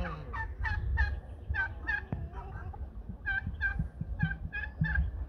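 Farmyard poultry calling: two runs of short, repeated call notes, about three a second, with a pause between them, over a low rumble.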